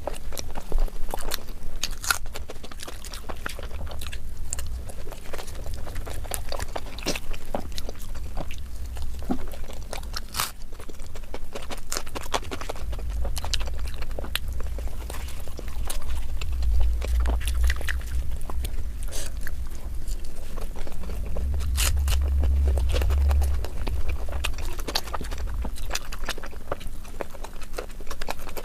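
Close-miked chewing of puri and curry: wet smacking and many small sharp mouth clicks, over a low rumble that swells in the middle.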